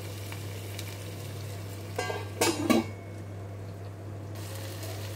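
Whole chicken sizzling gently in a little oil and its own fat in a pan over a low gas flame, over a steady low hum. About two seconds in, a brief loud pitched sound cuts in.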